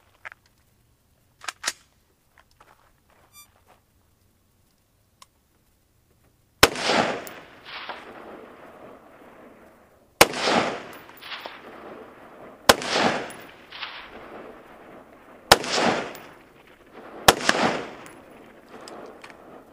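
ArmaLite AR-15 SPR Mod 1 rifle in 5.56 firing five single shots a few seconds apart, each sharp crack trailed about a second later by a fainter second burst.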